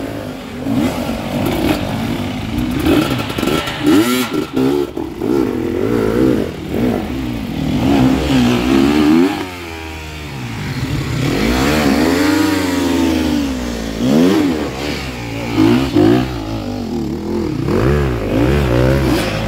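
Enduro motorcycle engines revving up and down again and again, the pitch rising and falling with each blip of the throttle, with one longer swell about twelve seconds in.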